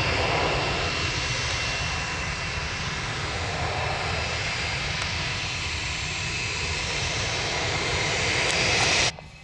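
Airliner jet engines running loud and steady, with a thin high whine over the noise, cutting off suddenly near the end.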